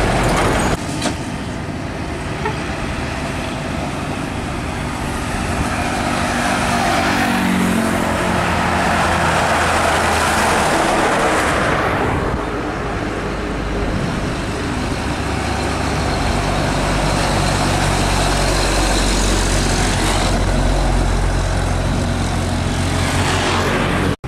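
Heavy road traffic, mostly trucks: engines running, with tyre and road noise that swells as trucks pass. About seven seconds in, one engine climbs in pitch as it accelerates.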